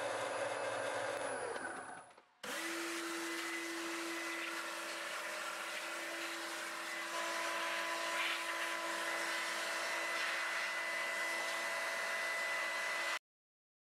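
Warco VMC turret mill running, its spindle driving an end mill in a brass workpiece: a steady motor-and-gear whine over a hiss. One run fades out about two seconds in and a fresh one starts straight after, a second, higher whine joins about halfway, and the sound cuts off suddenly near the end.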